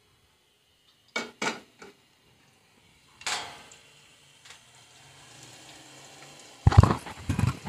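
A slotted spoon stirring chopped bitter gourd in oil in a non-stick wok, knocking and scraping against the pan: three short knocks a little over a second in, another at about three seconds, and the loudest cluster in the last second. In the second half there is a faint hiss of the oil beginning to heat.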